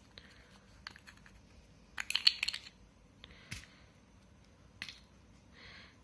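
Small plastic cosmetic jar of Neemli Naturals lip scrub being opened by hand: scattered light clicks, then a quick run of sharper clicks about two seconds in as the lid twists off, followed by a few single clicks and a soft rustle near the end.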